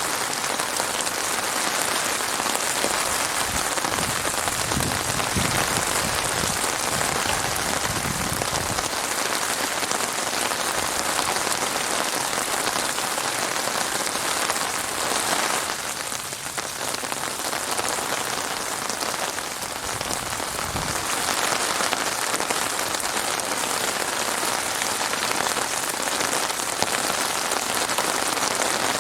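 Heavy rain falling steadily, a dense hiss of drops on surfaces, easing slightly about halfway through before picking up again.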